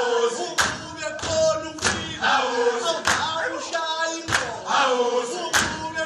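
A group of men singing a chant together, with sharp beats struck in time about every 0.6 seconds.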